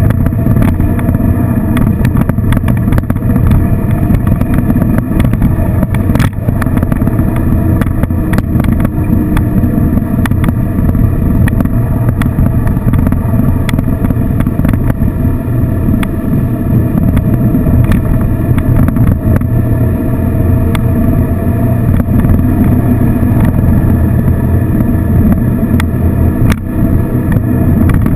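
Touring motorcycle running steadily at cruising speed, engine note under the rush of wind and road noise on an onboard microphone.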